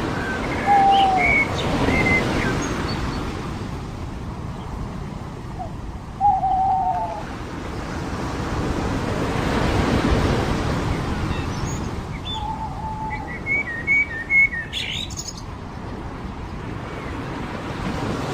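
Surf washing on a beach, swelling and ebbing, with birds calling over it: a few short lower calls and bursts of higher chirps.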